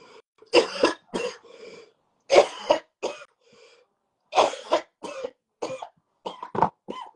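Man coughing hard in repeated fits, two or three coughs at a time with short breaths between, a smoker's coughing from a hit of weed.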